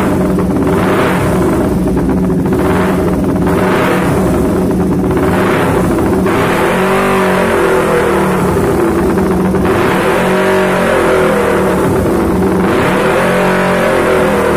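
Kawasaki Ninja 250 parallel-twin engine running with the throttle worked by hand. It gets four quick short blips, then three longer revs up and back down. This is the engine that runs but sounds rough and stumbles unevenly, the fault being chased.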